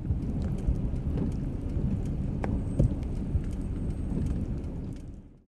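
Thunderstorm wind and rain: a steady low rumble of wind with scattered sharp raindrop taps.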